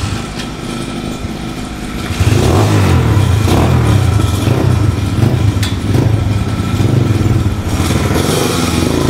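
Small petrol dirt bike engine running, growing louder about two seconds in and then revved up and down roughly once a second.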